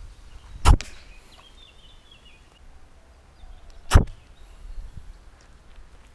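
Two sharp, brief whooshes about three seconds apart, as an arm swings hard through a throw right past the microphone.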